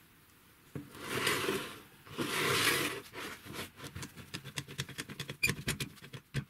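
Old rusty scissor car jack being worked by gloved hands: two rough scraping rustles, then a fast run of small metallic clicks and rattles as its screw is turned and the jack opens.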